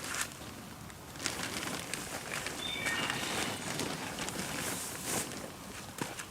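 Scattered crunches and rustles, like twigs and dry leaves being stepped on or handled, with a few short bird chirps about three seconds in.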